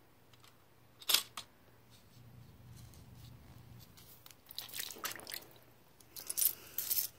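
Small handling noises of a removed engine thermostat in a paper cup of cold water: a sharp click about a second in as a metal tool presses on the stuck-open valve, then clusters of clinking and rustling around the middle and near the end as the thermostat is fished out by hand.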